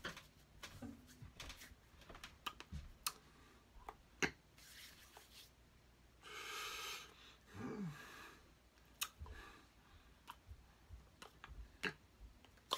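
Faint scattered clicks, taps and rustles of hands and clothing from a person signing, with a longer rustling hiss about six seconds in.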